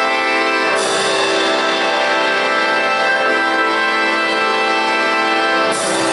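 Russian folk-instrument orchestra playing long held chords, which change about a second in and again near the end.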